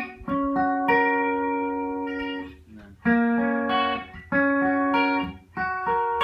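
Guitar playing three-note chord inversions in the key of G, about five chords struck one after another, each left to ring, with short breaks between them.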